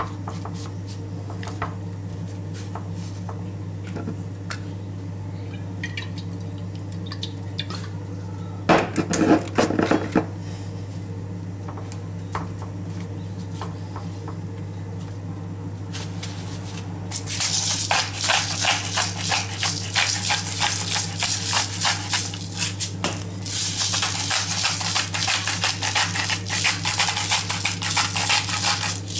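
Pepper grinder and then salt grinder being twisted over swordfish steaks: two long spells of rapid, crunchy grinding, the first starting a little past halfway, the second after a brief pause. Earlier there is a short louder clatter about nine seconds in, all over a steady low hum.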